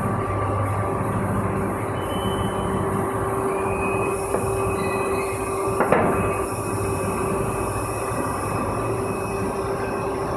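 PET preform injection molding machine running: a steady mechanical drone with a constant hum, and one sharp clunk about six seconds in.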